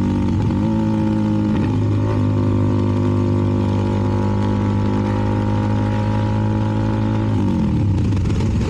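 CFMoto 300NK's single-cylinder engine through an aftermarket KO exhaust, running at a steady cruise. Its note dips and picks up again briefly in the first two seconds, then falls away near the end as the throttle is closed.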